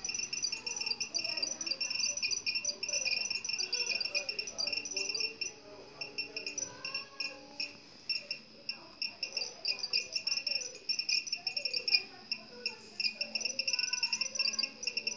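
Crickets chirping in rapid, high-pitched pulsed trills that carry on throughout and thin out briefly twice, over faint distant voices or music.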